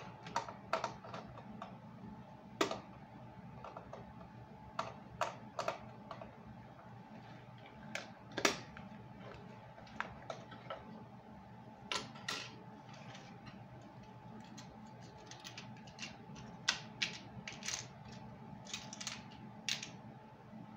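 Irregular small clicks and taps of batteries being handled, over a faint steady hum.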